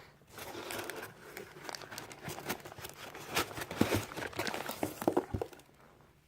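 Plastic packaging crinkling and rustling as it is handled, with many sharp crackles; it starts just after the beginning and stops about a second before the end.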